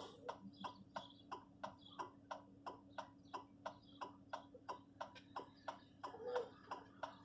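Vehicle hazard-light flasher clicking steadily, about three clicks a second, faint over a low steady hum.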